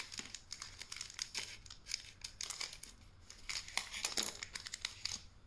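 Foil wrapper of a Pokémon card booster pack crinkling and rustling in the hands, a run of short irregular crackles, as the pack is opened and the cards are slid out.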